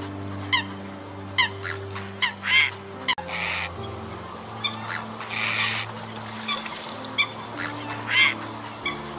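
Eurasian coots calling: short, sharp honking calls repeated irregularly, a dozen or so, over background music with sustained low chords. Two longer, noisier sounds come in the middle.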